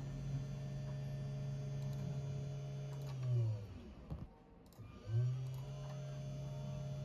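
CNC 3018 Pro router's spindle motor running with a steady hum. A little over three seconds in it spins down to a stop, then about a second later it spins back up to speed.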